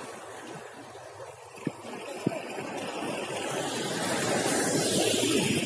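Sea water sloshing and splashing around a small inflatable raft, growing louder from about halfway through as a wave washes against it. Two short knocks sound about two seconds in.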